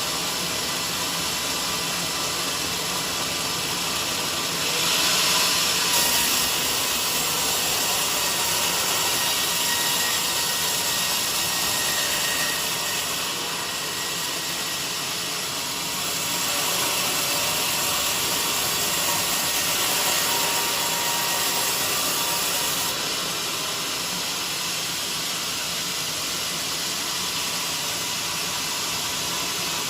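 Portable band sawmill running with a steady, hissing machine noise that grows louder twice, for several seconds each time.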